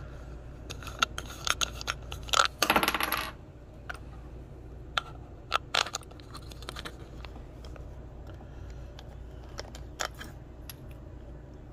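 Phone being handled and repositioned: scattered clicks, knocks and light clinks, with a short rattling scrape about two and a half seconds in.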